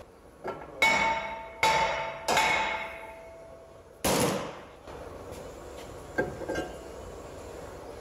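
Steel blows on a 2013 Ford Edge's front brake rotor: three sharp strikes within about a second and a half, each leaving the rotor ringing, then a louder clank about four seconds in. This is typical of knocking a rusted-on rotor loose from the hub.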